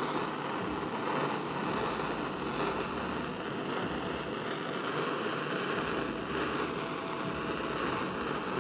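Gas soldering torch flame burning steadily, heating a silver buckle while the borax flux on it dries and settles.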